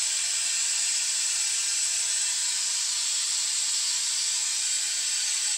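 Compressed air hissing steadily through the venturi vacuum generator of a coolant vacuum-refill tool, pulling the engine's cooling system down to about −23 inHg of vacuum. The hiss cuts off suddenly at the end as the vacuum is trapped in the system.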